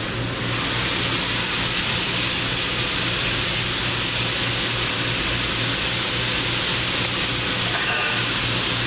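Hyd-Mech S-20A automatic horizontal band saw running without cutting: a steady motor and hydraulic hum under an even hiss.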